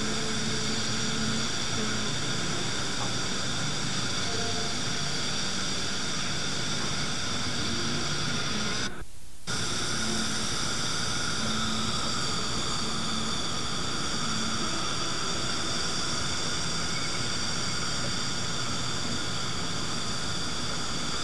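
Steady hiss with a low hum and faint high tones, broken by a brief dropout about nine seconds in.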